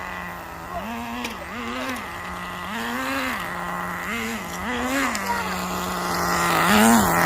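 Small two-stroke nitro (glow-fuel) engine of a remote-control car idling with a steady buzz and revved in about seven short throttle blips, each rising in pitch and falling back to idle.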